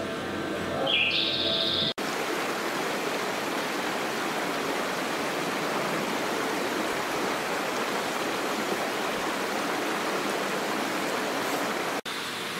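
A steady, even rush of running water, like a small waterfall or stream, which starts after an abrupt cut about two seconds in. Before the cut there is a short high chirp.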